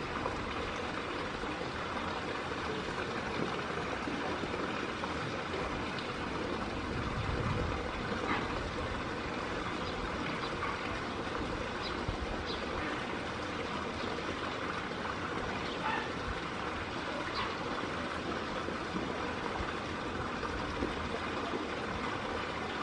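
Steady rushing background noise with a few faint, scattered ticks.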